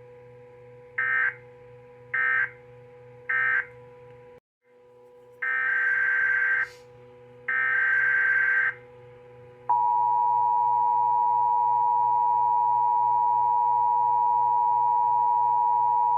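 Emergency Alert System data bursts over a faint steady hum: three short bursts about a second apart, the end-of-message code closing the previous alert, then after a brief dropout two longer SAME header bursts announcing the next alert. About ten seconds in, the loud steady two-tone EAS attention signal starts and holds.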